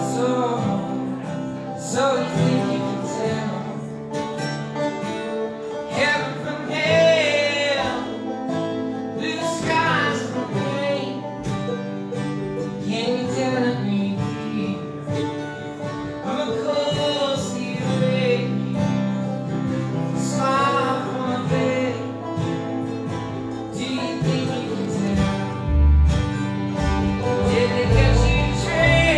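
Bluegrass band playing a tune: banjo, mandolin, guitar, fiddle and upright bass together, with the bass line running underneath.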